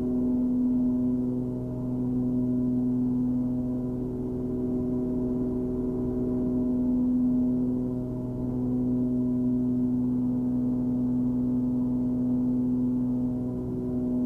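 Cessna 340 twin's turbocharged piston engines and propellers droning steadily in cruise, heard in the cabin. One steady pitch with overtones, slowly swelling and fading in loudness every few seconds.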